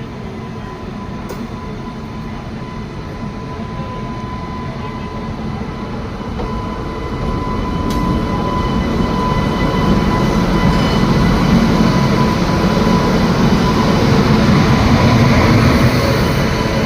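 Train approaching, the rumble of its wheels and carriages growing steadily louder over about ten seconds, then easing slightly near the end. A thin steady whine runs through it.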